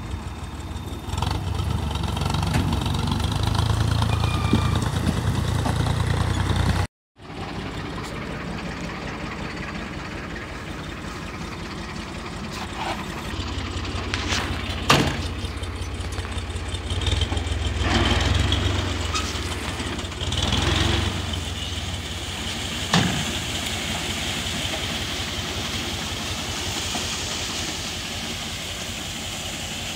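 Tractor diesel engines running while a corn picker's raised hopper empties cobs into a trailer. After a short break, a tractor engine idles while its tipping trailer unloads corn cobs onto a pile, with a couple of sharp knocks.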